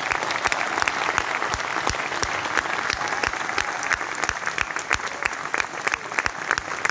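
Audience applauding, with one pair of hands close by clapping evenly at about three claps a second.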